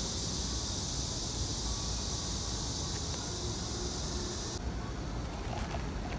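Steady outdoor background noise: a low rumble with a high steady hiss that cuts off suddenly about two-thirds of the way in.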